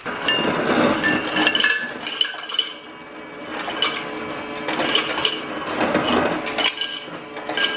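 Kitchen dishes and cutlery clinking and rattling in quick, uneven strikes that ring briefly.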